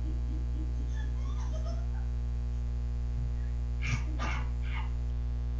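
Steady electrical mains hum, with faint brief chirps in the first two seconds and three short, sharp sounds about four seconds in.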